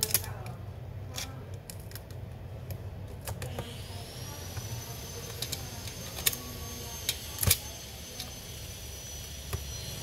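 Sharp clicks and knocks of metal and plastic as the copper heat-pipe heatsink assembly is worked loose and lifted off the laptop's motherboard, the loudest about seven and a half seconds in. From about three and a half seconds a thin high whine rises and then holds steady.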